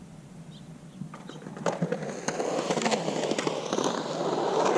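Skateboard rolling on concrete on hard 97a urethane Santa Cruz Slime Balls Vomit wheels, starting about a second and a half in and growing louder, with scattered clicks and ticks.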